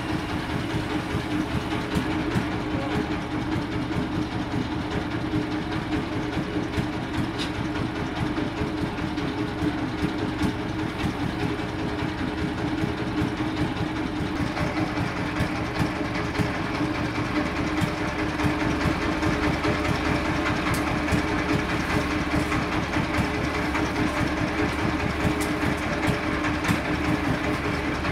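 Large industrial sawmill bandsaw running steadily. About halfway through its sound changes and a higher component joins in.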